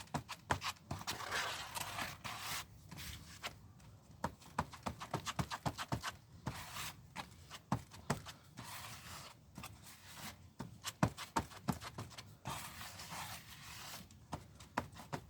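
Metal-based body filler being mixed with its red hardener: a run of irregular scraping and quick tapping clicks as the tool works the paste.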